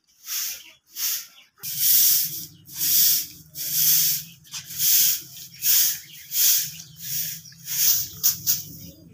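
Short handleless grass broom sweeping a bare concrete floor in swishing strokes, about one a second. A low steady hum starts under the strokes about two seconds in.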